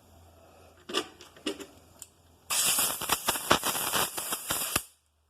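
Boring bar in a milling machine's boring head cutting metal: a few clicks, then a dense crackling, rattling cut that stops suddenly near the end.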